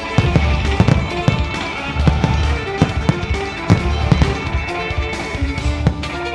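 Fireworks display: aerial shells bursting in a quick run of sharp bangs, several a second, over loud music with heavy bass notes.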